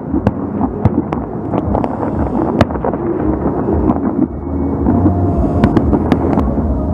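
Fireworks going off: a rapid, irregular string of sharp bangs and cracks over a continuous rumble of overlapping bursts carried across the water.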